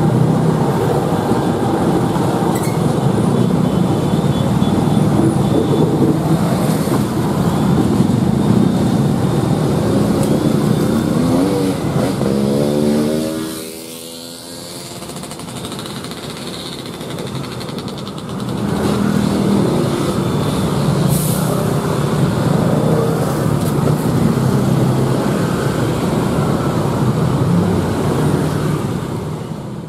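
Diesel-electric railway locomotive engine running as the locomotive moves slowly past at close range, a steady heavy drone. About twelve seconds in, an engine note briefly rises in pitch; the sound then drops for a few seconds before the locomotive's drone comes back.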